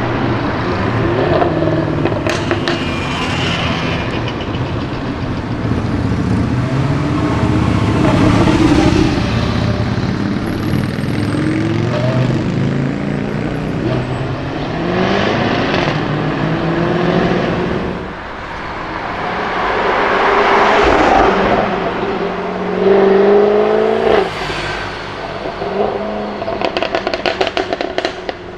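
Jaguar F-Type V8 R's supercharged 5.0-litre V8 accelerating hard several times, its pitch rising through each gear and dropping on the shifts. Near the end comes a rapid crackle of exhaust pops.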